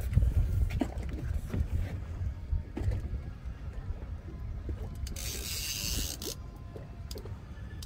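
Wind rumbling on the microphone over the clicking of a fishing reel being cranked as a hooked fish is reeled up toward the boat. A brief rush of hissing noise comes about five seconds in.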